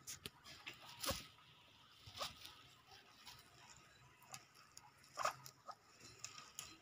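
Guinea pigs rustling and munching fresh grass: faint, irregular crunches and rustles, the loudest about a second in and again near five seconds.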